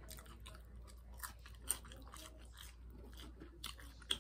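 A person chewing a french fry close to the microphone: soft, irregular crunching and wet mouth clicks, with a couple of sharper clicks.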